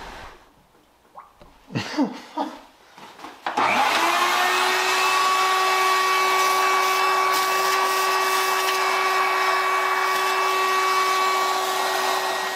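Shop vacuum switched on about three and a half seconds in and running steadily with a whining motor tone, its hose sucking debris out of the engine bay, then winding down near the end. A few light knocks come before it starts.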